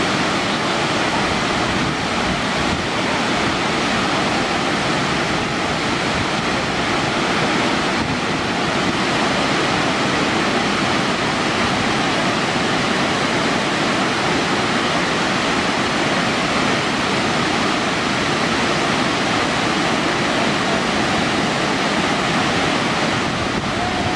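Burney Falls waterfall pouring into its plunge pool: a loud, steady rush of falling water.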